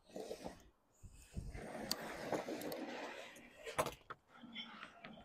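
Sheet lead being cut and handled on scaffold boards: a knife drawn along the sheet, then the lead sliding and flexing with a scraping rustle, with a couple of sharp knocks.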